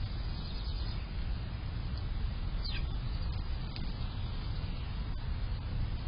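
Steady low outdoor rumble, with a faint, brief falling bird chirp a little under three seconds in.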